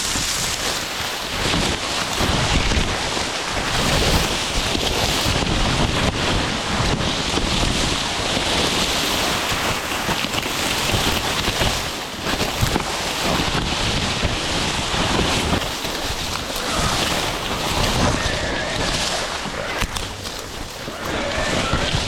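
Steady wind and rustling noise buffeting the microphone, with irregular low thuds throughout.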